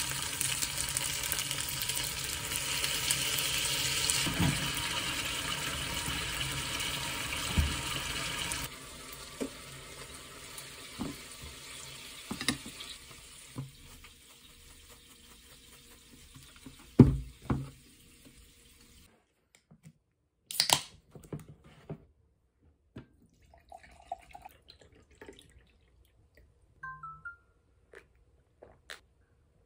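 Shrimp frying in a pan, hissing loudly as cream sauce is poured in; the sizzle cuts off suddenly about nine seconds in. Then comes a fading quieter hiss and a few scattered light knocks and clicks.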